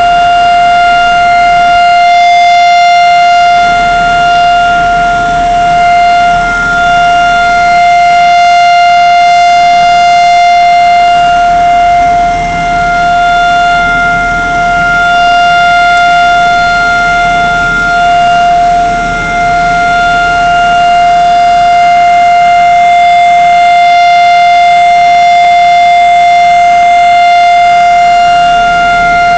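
Civil-defence siren sounding one long, loud tone that holds its pitch. This is the Israeli Memorial Day siren, the nationwide signal to stand in silence for the fallen soldiers.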